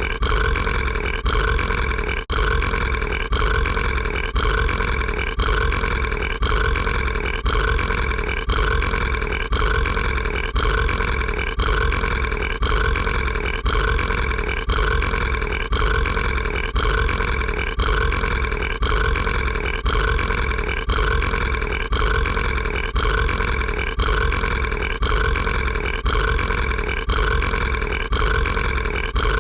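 A cartoon character's voiced burp, a short piece of it looped over and over without a break, so it repeats in a quick, even cycle at a steady pitch.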